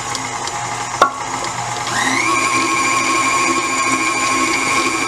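Electric stand mixer running, its beater whirring through thin cake batter. There is a sharp click about a second in. Near two seconds the motor's whine rises in pitch and settles into a higher, slightly louder steady whine as the mixer speeds up.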